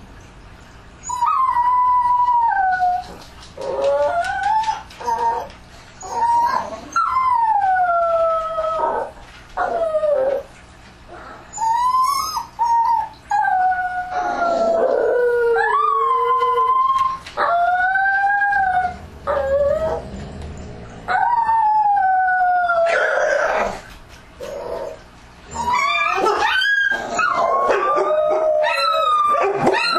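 Dogs howling: a series of long, pitched howls, many sliding down in pitch, with short pauses between them. In the last few seconds the howls overlap into a denser chorus.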